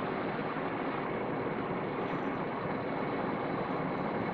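Steady background hiss, even and unchanging, with no distinct sounds standing out.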